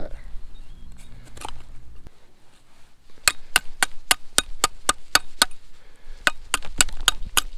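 Two quick runs of sharp knocks, about four a second, starting about three seconds in with a short pause near six seconds.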